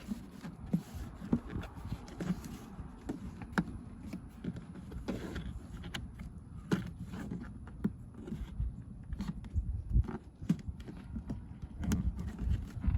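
Irregular knocks, taps and clicks of interior trim and the rubber door seal being pressed and forced into place by hand.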